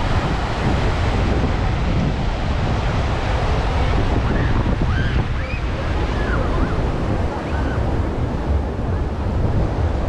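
Sea surf breaking and washing up the sand, with wind rumbling steadily on the microphone.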